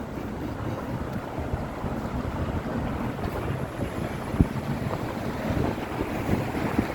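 City street noise: a steady low rumble of traffic with wind buffeting the microphone, and one sharp knock about four seconds in.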